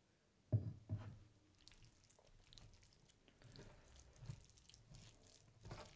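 Close-miked eating sounds: two wet smacks about half a second and a second in, then soft wet squishes and small clicks as a bare hand works through egg curry and rice on a steel plate.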